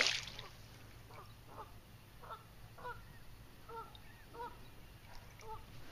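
A bird calling in a string of about nine short, nasal calls, a little under two a second, after the tail of a water splash fades at the very start.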